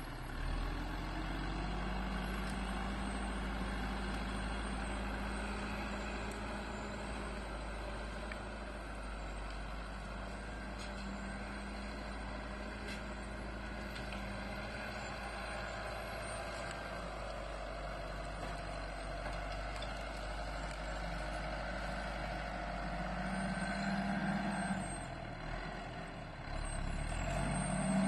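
Diesel engine of an LKT 81 forestry skidder running steadily under load while it drags logs. The engine note climbs about three-quarters of the way through, drops briefly, then revs up louder near the end, pushing out exhaust smoke.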